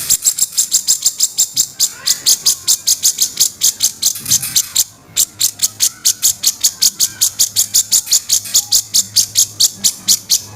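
Cucak jenggot (grey-cheeked bulbul) giving its harsh, rough 'kasaran' call as a fast, even chatter of about five notes a second, pausing briefly about halfway through.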